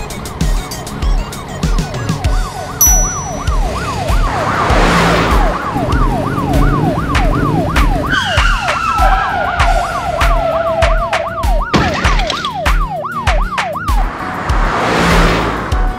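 Police car siren sound effect, a quick yelping wail rising and falling a few times a second, which cuts off about twelve seconds in. It plays over background music with a steady beat, with a whoosh about five seconds in and another near the end.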